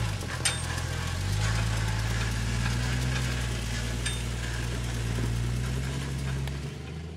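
Jeep engine running steadily at low revs, with two short sharp clicks or clanks. The sound fades out near the end.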